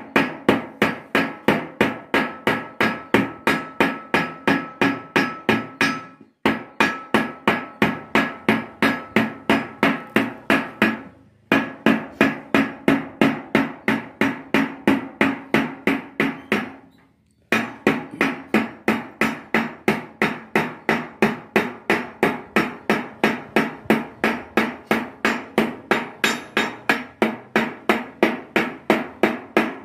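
Hand hammer striking steadily, about three blows a second, along the seams of a curved sheet-metal mosque dome, closing the joints between its panels. Each blow rings metallically. The hammering stops briefly three times.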